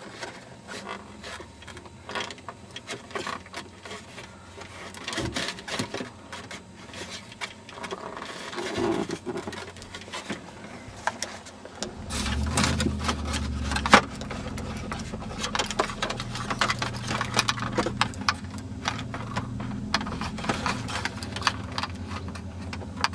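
Plastic dashboard trim and instrument-cluster wiring connectors being handled and unclipped: a run of small clicks, taps and scrapes, with one sharper knock a little past halfway. A low steady rumble comes in about halfway and stays under the clicking.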